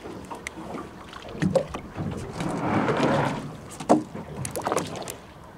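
Water sloshing and splashing against the side of a boat's hull, swelling in the middle, with a few light knocks and clicks.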